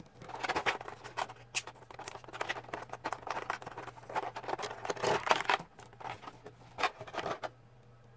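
Hands handling a plastic toy figure: irregular scratching and rustling with sharp clicks for about seven seconds, stopping suddenly near the end.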